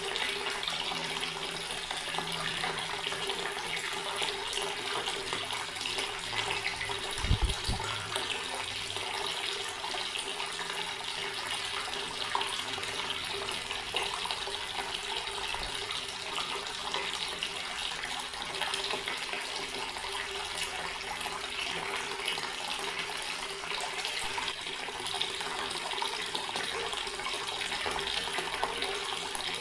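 Water running steadily from a garden tap and splashing, an even rushing with a faint steady hum under it. A brief low thump comes about seven seconds in.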